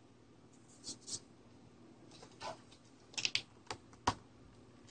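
A few light, irregular clicks and taps of hard plastic being handled, with a small cluster of them near the end.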